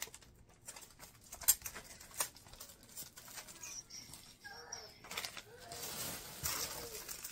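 Plastic packaging rustling and crinkling as items are handled and dug out of a cardboard box, with a few sharp clicks and taps, the loudest about one and a half seconds in. The rustling grows louder near the end.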